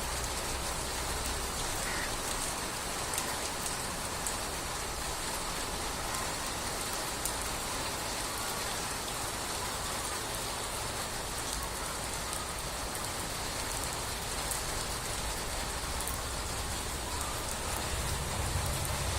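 Steady rain falling, with scattered sharp drip ticks; a low rumble comes up near the end.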